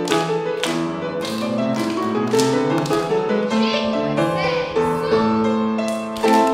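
Piano playing a rhythmic classical accompaniment for a ballet class exercise, with chords struck about twice a second. A loud chord near the end is left ringing.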